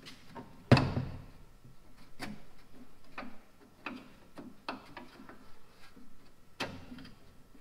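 Irregular metallic clinks and knocks of hand tools and loosened bolts being handled on a rusty tractor radiator shroud, with one sharper clank a little under a second in.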